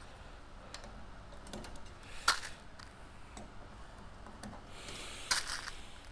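Rivet squeezer setting rivets in aluminium aircraft fuselage skin: scattered light clicks and taps, one sharp click about two seconds in, and a brief hiss with a couple of clicks near the end.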